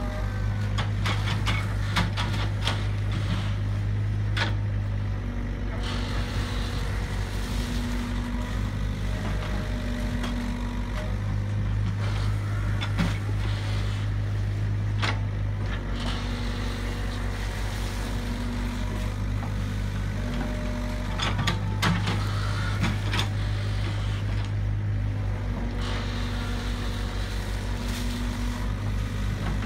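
Long-reach excavator's diesel engine running steadily, with a higher hum that comes and goes as the hydraulics move the boom and bucket. Scattered knocks and scrapes come from the bucket digging in the muddy ditch.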